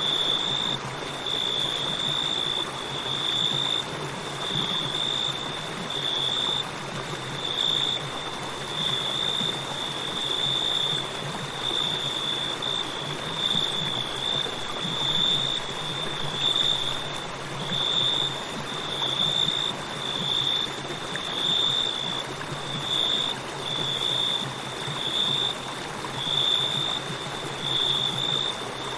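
A river flowing steadily, with crickets chirping over it in a continuous high-pitched, evenly pulsing trill.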